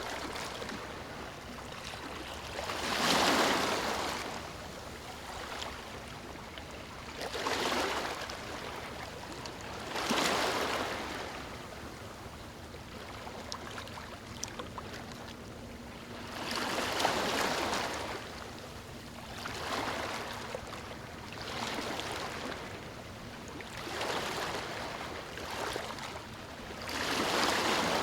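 Sea waves breaking on a sandy shore: a steady wash of surf with about eight breakers surging up and falling away at uneven intervals, the loudest about three seconds in.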